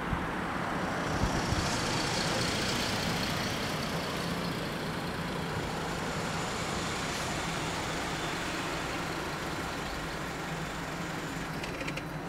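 Road traffic at a closed level crossing: a car drives up and stops, and the waiting engines idle with a steady low hum.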